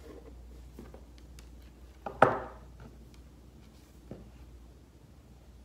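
Quiet handling of a trolling lure and its leader wire on a workbench: faint ticks and rustles, one sharper clack about two seconds in and a lighter tick about four seconds in.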